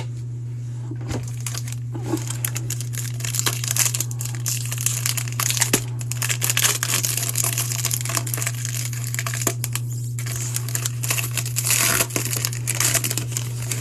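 Foil wrapper of a baseball card pack crinkling as it is torn open and handled, a dense run of crackling that starts about two seconds in.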